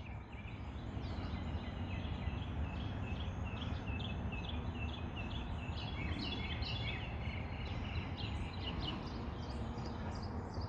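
Wild birds chirping: many quick, short high notes repeated over and over, thinning out near the end, over a steady low background rumble.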